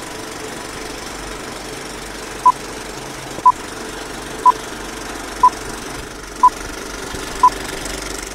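Old-film countdown leader sound effect: a short, high, pure beep once a second, six times in all, over a steady hiss and rattle of film-projector noise.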